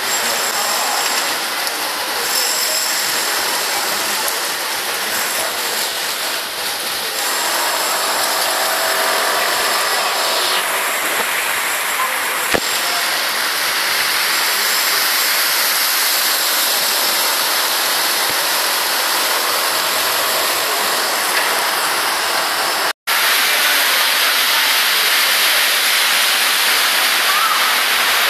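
Heavy rain pouring down on a flooded street, with water running: a loud, steady hiss that cuts out for an instant about three-quarters of the way through.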